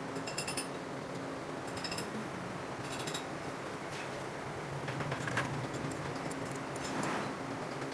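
Light metallic clinks and taps of small engine parts and tools being handled during motorcycle timing-chain reassembly, over a steady low background hum.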